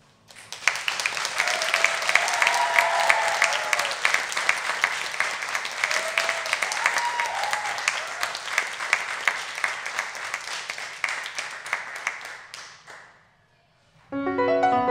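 Audience applauding after a jazz trio's piece, with two short cheers partway through; the clapping dies away about 13 seconds in. A grand piano starts playing just before the end.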